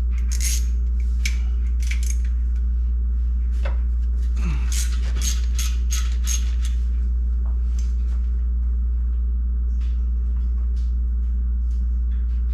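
Wrench and socket clinking and clicking irregularly against steel header bolts and exhaust pipes, several sharp metallic taps with a short ring, over a steady low hum.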